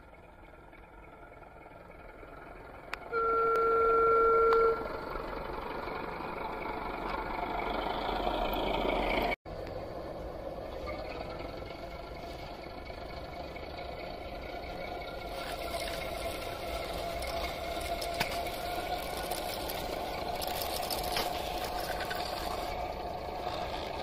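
Sound decoder in an O gauge model Class 08 diesel shunter playing the locomotive's diesel engine sound through its small onboard speaker as it runs. A single steady horn blast about three seconds in lasts about a second and a half, and the sound drops out for an instant about nine seconds in.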